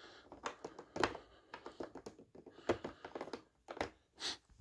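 Irregular light clicks and metallic clinks of small chrome Milwaukee 3/8" and 1/4" drive universal joints being handled and flexed in a plastic socket tray.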